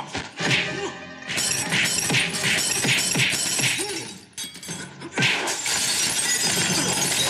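Martial-arts film fight sound effects over a music score: a quick run of blows about three a second, then a long crash of smashing and breaking.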